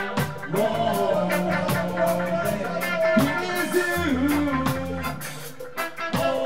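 Ska band playing live with a steady beat: a man singing over electric guitar and drum kit.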